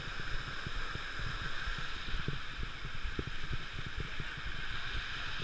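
Steady rushing of a waterfall, with irregular low rumbles on the microphone.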